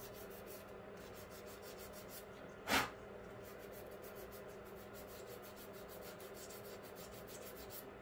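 A sanding stick rubs lightly over the glued seam of a 1/25-scale model car tire in rapid, even strokes, taking down the raised seam; it sounds like harder sanding than it really is. A single sharp knock a little under three seconds in, over a faint steady hum.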